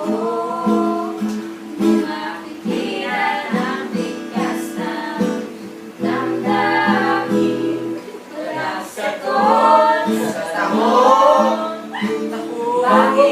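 A voice singing a slow melody to strummed and plucked guitar accompaniment.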